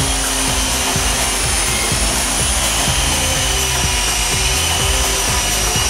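Walkera CH-46 tandem-rotor RC electric helicopter in flight: its four 370-size electric motors give a steady, high-pitched whine, with the rush of the rotors' downwash.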